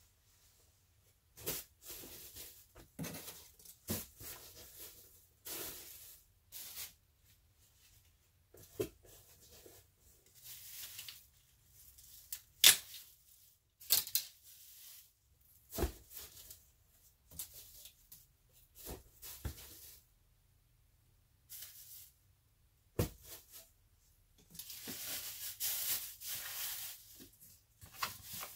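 Plastic shopping bags and cardboard boxes being handled while packing: irregular crinkling and rustling with a few sharp clicks and knocks, and a longer stretch of continuous rustling near the end.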